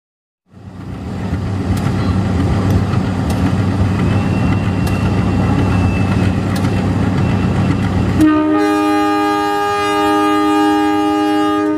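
A CC 201 diesel-electric locomotive rumbles past, hauling its passenger cars, with a few sharp clicks from the running gear. About eight seconds in, it sounds a long blast on its multi-tone horn, which dips once briefly.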